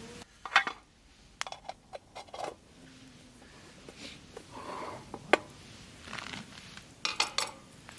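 Scattered clicks, clinks and knocks of small hard objects being handled, in uneven clusters: a sharp one about half a second in, several more a second or so later, a single sharp click about five seconds in, and a quick run of clinks near the end.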